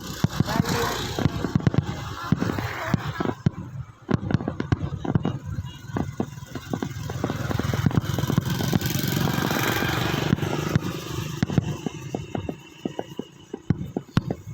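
Fireworks going off: a rapid, irregular series of sharp cracks and bangs over a continuous rumble, building to its densest a little past the middle.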